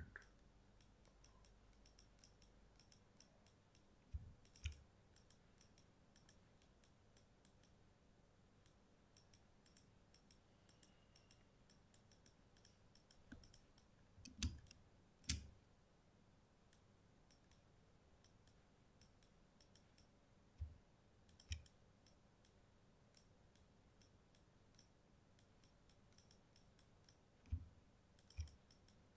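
Computer mouse clicking: many faint quick clicks, with a few louder clicks that come in pairs about half a second to a second apart, over a near-silent room.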